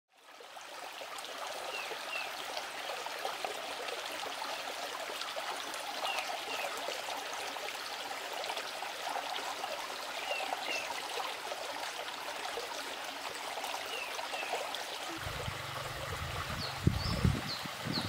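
Shallow stream running over rocks, a steady rush of water. A short two-note chirp repeats about every four seconds, and low rumbles come in near the end.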